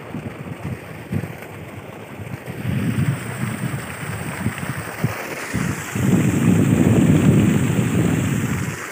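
Wind buffeting the microphone outdoors as a gusty, uneven rumble that grows louder in the second half.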